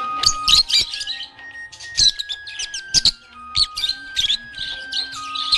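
Budgerigar chirping and warbling in quick, high clusters over background music: a simple melody of held notes stepping up and down.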